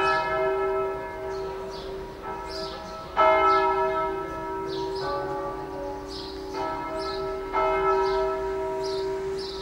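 Church bells ringing a peal, several bells striking in an irregular overlapping sequence about every one to two seconds, each stroke humming on long after it, the loudest stroke about three seconds in.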